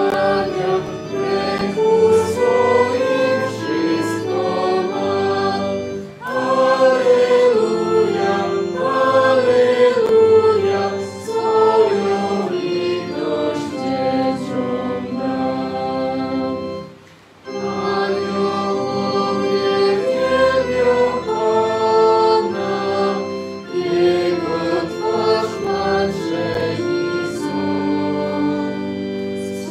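A congregation singing a hymn together, in sustained melodic phrases, with a short break between phrases about seventeen seconds in.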